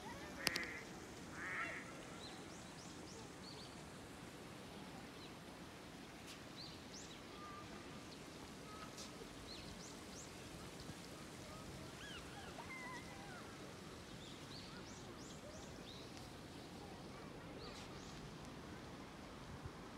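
Faint outdoor ambience of birds calling around a pond: scattered short chirps and whistles over a steady low background noise. Near the start there is a sharp click and then a short harsh call.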